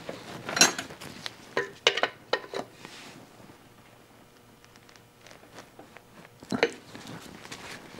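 Several sharp metal clinks of a steel wrench being picked up and handled in the first few seconds, then a quieter stretch and one more clink near the end.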